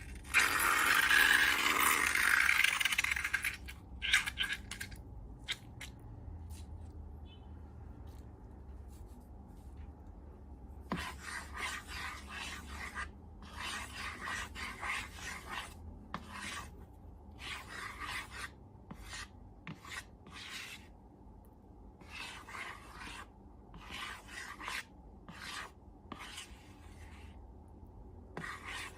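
Scraping and rubbing strokes from slime-making by hand. A loud continuous rush in the first few seconds gives way to short separate strokes, roughly one a second, in the second half.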